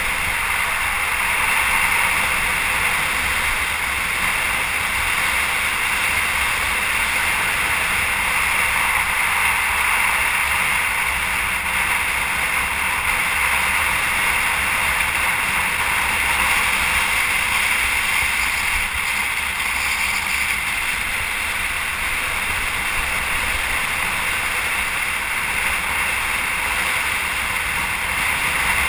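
A steady, unbroken rushing noise at an even level.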